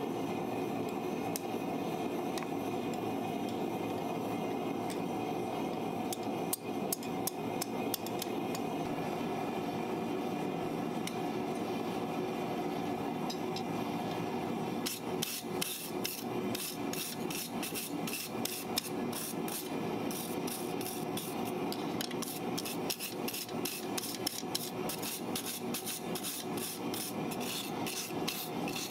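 Hand hammer striking hot steel on an anvil, shaping a snake forged from a farrier's rasp. There are a few scattered blows about six to eight seconds in, then a run of quick, regular strikes at about three a second from halfway on, over a steady background noise.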